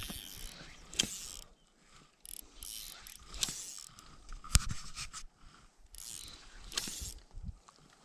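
Fly reel's click-and-pawl drag ratcheting in short bursts as line is pulled off it, with a few sharp clicks in between.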